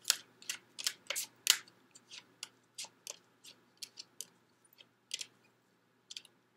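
Oracle cards being leafed through by hand: a string of short, crisp card snaps and flicks, a few a second, busiest at the start, with a brief pause near the end.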